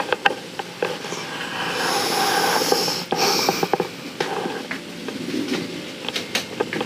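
Handling noise of a handheld camera being carried through a small room: rustling and small knocks, with a long breathy rush of sound lasting about two seconds in the middle and a softer one near the end.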